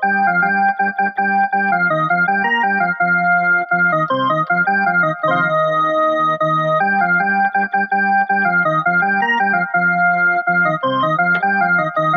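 Small portable electronic keyboard playing a tune with an organ voice: held notes that change every half second or so over a lower moving line, at a steady level.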